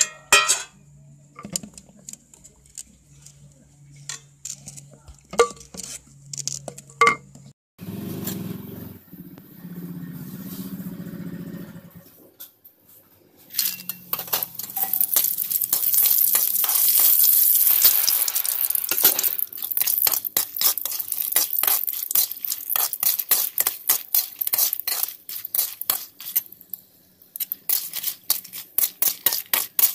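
A wooden spoon knocks and scrapes as it stirs thick spinach dal in a pot. About thirteen seconds in, dried red chillies start sizzling and crackling loudly in hot oil for the tempering, with a spoon clinking against the pan.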